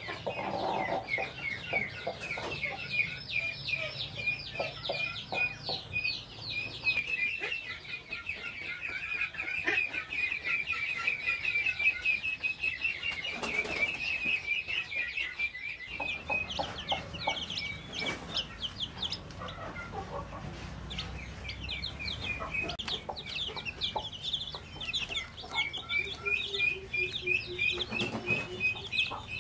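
Many newly hatched chicks peeping in a constant stream of short, high chirps, with a hen's low clucks now and then, including a short run of them near the end.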